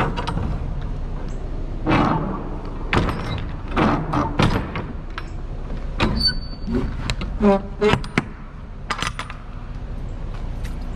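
Metal clanks and rattles of a semi-trailer's rear swing door and its latch handles and lock rods being handled, with a short creak about seven and a half seconds in.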